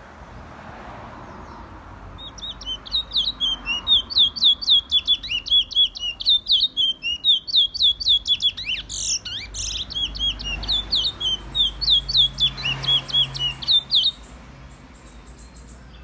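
A songbird singing a long, fast string of sharp, repeated whistled notes, about three to four a second. It starts about two seconds in and stops about two seconds before the end.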